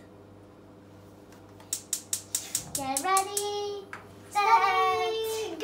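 A young girl singing long held notes. A quick run of sharp clicks comes about two seconds in, just before and as the singing starts.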